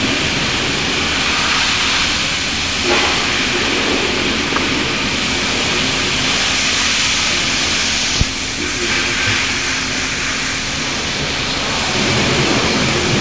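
Hybrid car's engine running, heard mostly as a steady rushing hiss with a faint low hum. There is a single sharp click about eight seconds in.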